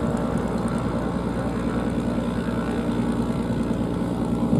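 Piston engine and propeller of a V-tail Beechcraft Bonanza running steadily at low power while the aircraft taxis.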